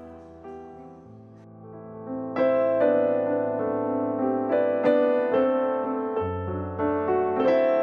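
Background music: a soft piano piece of sustained chords over long bass notes, quiet at first and growing louder about two and a half seconds in.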